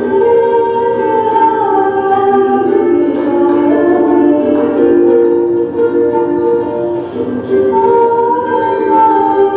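Female voice singing a song with ukulele accompaniment, the sung notes long and held.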